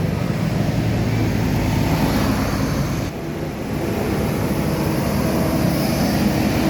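Steady rumble of road traffic passing close by: engines and tyre noise, dipping briefly about three seconds in.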